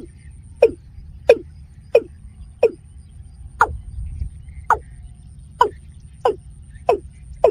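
Watercock calling: a steady series of short notes, each falling in pitch, about one and a half a second with a brief pause midway, over a low rumble.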